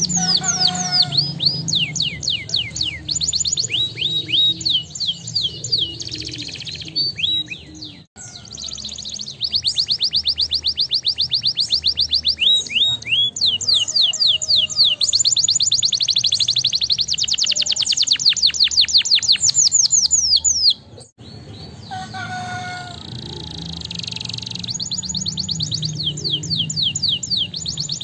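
Domestic canary singing: long, rapid trills of repeated notes alternating with runs of quick falling sweeps. The song breaks off briefly about a third of the way in and again about three-quarters through.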